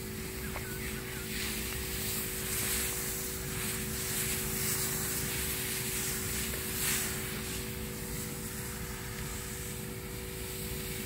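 A motorized power sprayer running steadily with a constant hum, and the hiss of high-pressure fungicide spray leaving the hose wand onto rubber seedlings.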